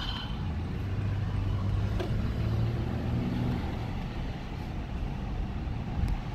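Car engine and road rumble heard from inside the cabin, with the engine hum swelling slightly midway.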